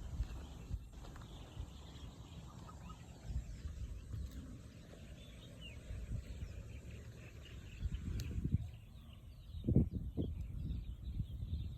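Open rice-field ambience: faint bird chirping over an uneven low rumble, with a few louder thuds near the end.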